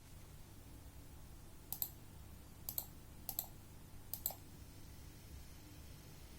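Sapphire Nitro+ RX 590 graphics card rattling: four sharp double clicks at uneven intervals, over a faint steady low hum.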